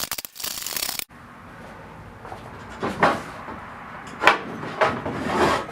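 A fast, dense metallic rattle of hand tools for about a second that cuts off abruptly, then several separate clunks and clanks of metal lathe parts being handled.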